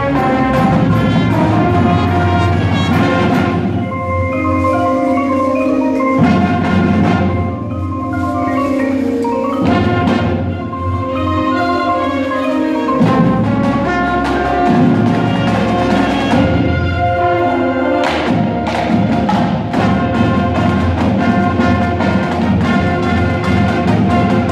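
Indoor winds ensemble playing live: marimbas and vibraphones ringing out struck notes over held brass and saxophone chords, with drum hits.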